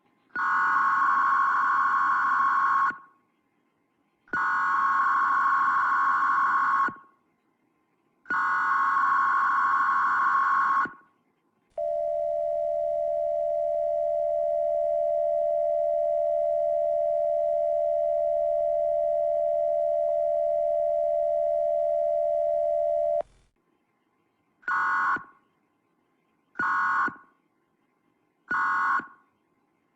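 US Emergency Alert System tones slowed to 0.7x speed, which lowers their pitch. First come three long, buzzy data bursts (the SAME header), each about two and a half seconds, then a steady two-tone attention signal held about eleven seconds, then three short data bursts (the end-of-message code) near the end.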